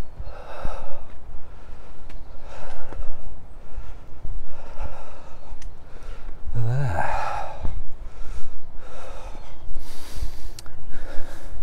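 A man breathing hard as he walks up a steep slope, a loud breath about every two seconds; one breath about seven seconds in is voiced, like a sigh.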